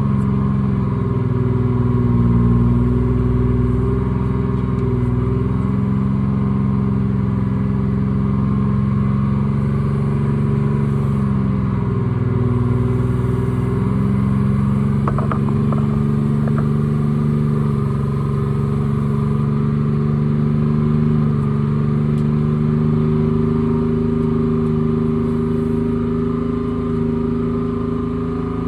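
Treefarmer C5 forwarder's diesel engine running steadily, its pitch rising and falling as the machine works. A few light knocks come about halfway through.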